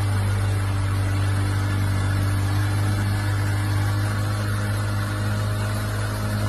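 Boat's outboard motor running at a steady speed with a constant low drone, over the rushing hiss of water past the hull.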